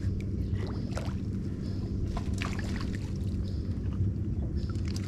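Water splashing and sloshing against a wooden canoe, several short splashes over a steady low hum, as a hooked matrinxã is fought on the line.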